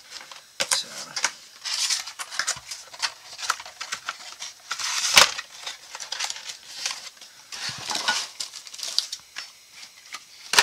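Rifle parts and their packaging being handled: irregular rustling with small metal clicks and clinks, and one sharper knock about five seconds in.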